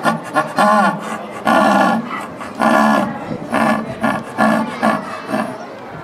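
Female jaguar giving a run of about seven short, hoarse calls, roughly one a second, growing weaker near the end. The voice sounds thin for a big cat, which the uploader puts down, perhaps, to her old age.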